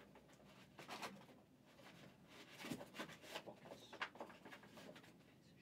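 Faint rustling and light clicks of trading cards and packaging being handled, in short scattered bursts, busiest about midway.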